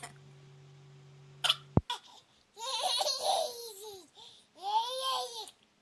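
A toddler girl laughing and babbling in two long bursts, the second rising and falling in pitch, in reaction to fake coughing. Before them, a steady low hum cuts off with a click about two seconds in.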